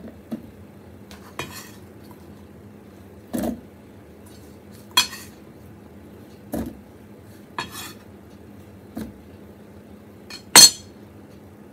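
Cucumber chunks being moved off a wooden cutting board into a plastic pitcher on a kitchen scale: about seven separate soft knocks and clinks, a second or so apart, with the loudest, sharpest clink near the end as a kitchen knife meets the board.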